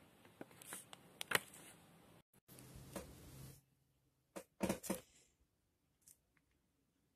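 Ballpoint pen scratching on paper in short, quick strokes, with a sudden break a little over two seconds in and another brief cluster of pen strokes about four and a half seconds in.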